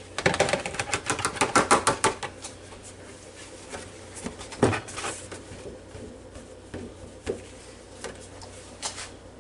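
Chopped chicken pieces pushed off a flexible plastic cutting board into a bowl: a quick run of taps and scrapes for about two seconds, then a few separate knocks of the board and bowl.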